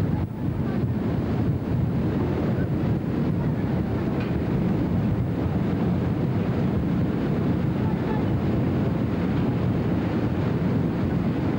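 Steady low rushing of a ship's churning wake and engine, with wind buffeting the microphone.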